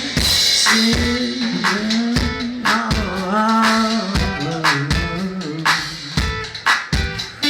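Live rock band playing, with regular drum hits under a melodic lead line that bends up and down in pitch.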